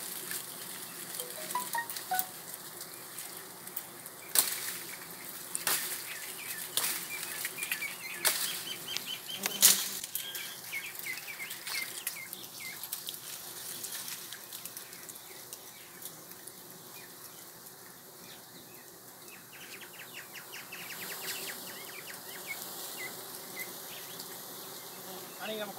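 Wild honey bees buzzing around their hanging comb, a steady drone of many wings. A few sharp clicks or knocks stand out over it in the first half.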